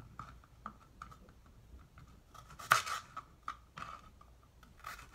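Garlic cloves being cut up with a blade: a run of small, irregular crunches and clicks, the loudest about halfway through.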